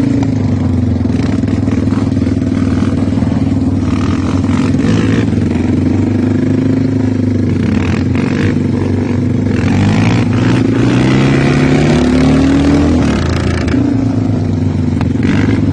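450 cc quad (ATV) single-cylinder engine running, its pitch rising and falling as the throttle is opened and closed, with the clearest revs in the second half.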